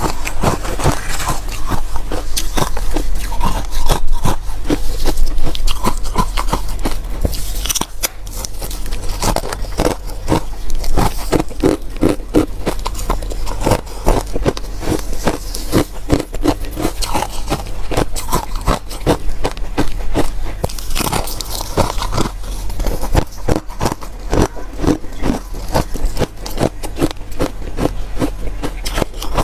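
Close-up chewing and biting of crunchy ice and frost: a continuous run of sharp, crackling crunches, with a steady low hum underneath.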